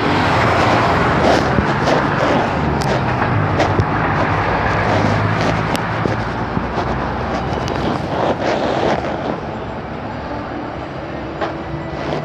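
Busy street noise: a car engine runs close by as a low, steady hum through the first eight seconds or so, with traffic and scattered clicks and knocks. The mix then grows a little quieter.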